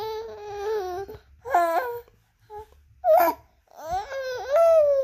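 A baby of just over three months cooing and babbling. First comes one long, held coo, then three shorter ones with rising and falling pitch.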